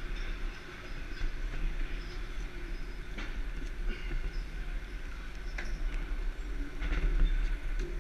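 Steady low rumble and hum inside the steel hatch trunk, with a few knocks of gloved hands and boots on the steel access ladder during the climb down.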